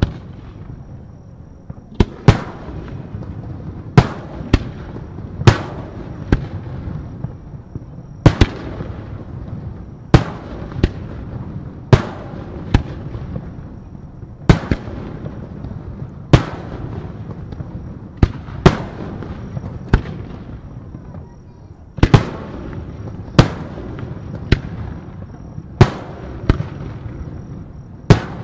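Aerial firework shells bursting in a steady series, a sharp bang every one to two seconds, with a rolling low rumble and echo between the bursts.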